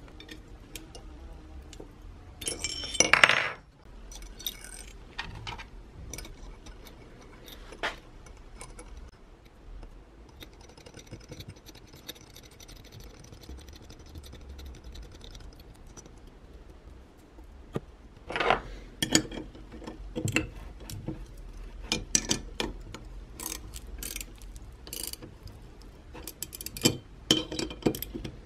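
Small metal parts of an electric iron clinking and tapping as it is reassembled: nuts, washers and terminal pieces handled and fitted onto its steel studs, with a louder clatter about three seconds in. Near the end come quick clicks of a ratchet wrench tightening the nuts.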